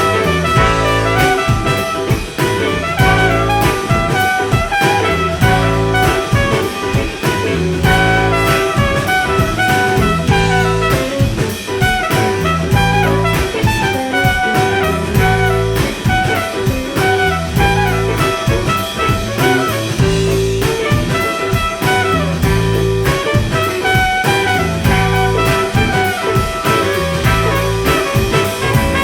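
Live band playing an instrumental stretch of a jazz-blues tune in D, with drum kit, a repeating bass line and horn-like melody lines over a steady beat.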